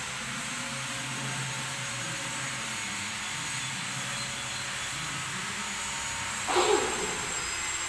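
Broom sweeping a bare concrete floor: a steady scratchy hiss, with one short louder burst about six and a half seconds in.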